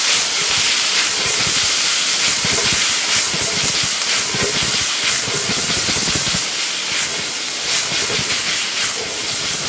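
Shrimp, onion and bell peppers sizzling with a steady hiss in a hot frying pan while the pan is tossed to mix them, with small scrapes and rattles of the food shifting.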